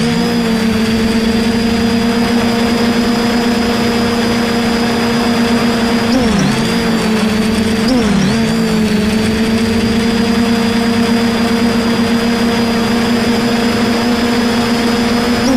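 DJI F450 quadcopter's brushless motors and propellers whining steadily, heard from the camera mounted on the airframe, over a rush of wind noise. The motor pitch dips briefly and recovers twice, about six and eight seconds in.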